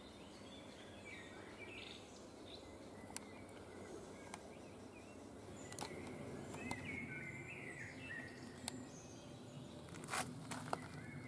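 Quiet woodland ambience: songbirds calling faintly in a few short chirping phrases over a steady low background noise, with several sharp clicks, the loudest two near the end.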